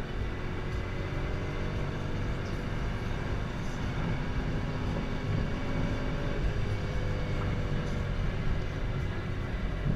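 Chevrolet Camaro ZL1's supercharged V8 heard from inside the cabin at highway speed, a steady low drone mixed with tyre and wind noise and no sharp changes in revs.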